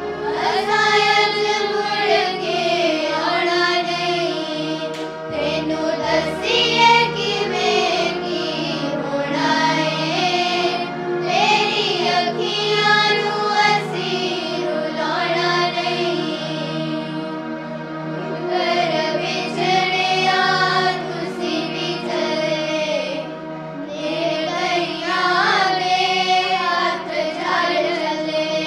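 A group of young girls singing a Punjabi song together in unison, with a steady low drone held under the voices.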